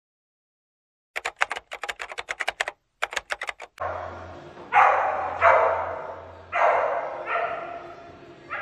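A rapid run of typewriter key clicks, then, from about four seconds in, a Samoyed barking four times, each bark trailing off, over a low steady hum.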